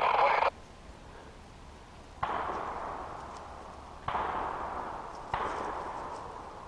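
Three distant gunshots, each sharp crack trailing off in a long fading echo, the second about two seconds after the first and the third about a second and a quarter later. A brief loud burst of noise opens the stretch.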